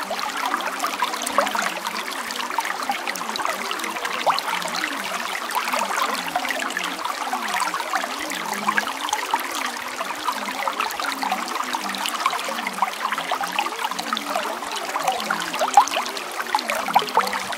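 Steady running water, a trickling stream with many small quick splashes and bubbles, at an even level. It serves as the audible masking layer of a subliminal affirmations track.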